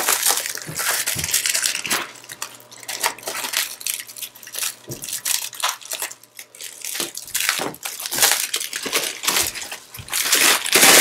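Clear plastic wrap being pulled and peeled off a foam-padded metal rack rail, crinkling and crackling in irregular bursts.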